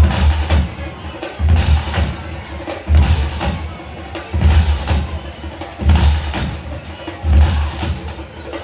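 Marching band music led by drums, with a heavy bass drum beat landing about every second and a half under busier percussion.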